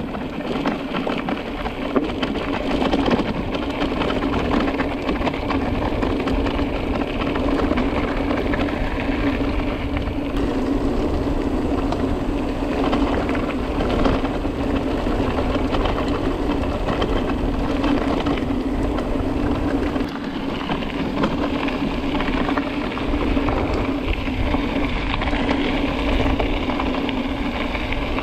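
Electric mountain bike being ridden: a steady motor hum over wind on the microphone and tyre rumble on the trail.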